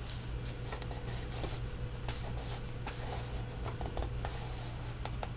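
Cardstock and paper rustling and sliding as hands fold a paper pocket flap over recipe cards and press it down, with scattered light clicks and taps. A steady low hum runs underneath.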